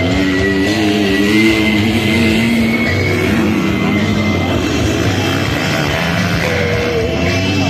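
Background music: a track with a steady low beat and a melody line over it.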